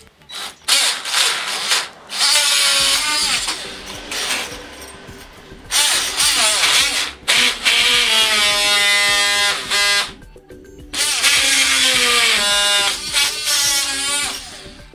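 Ryobi 18V ONE+ cordless oscillating multi-tool cutting through steel nails flush with the wood, in about five loud runs with short pauses between them. The blade on the metal gives a shrill screech whose pitch slides up and down.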